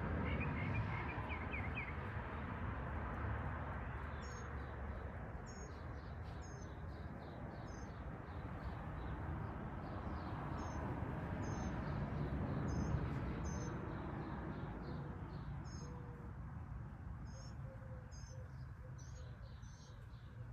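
Bird chirping: short high chirps repeated roughly once a second, over a steady background hiss.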